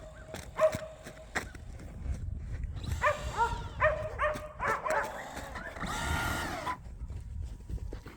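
A dog barking in short repeated barks, a few near the start and a quick run of them about three to five seconds in, with a longer drawn-out cry near the end.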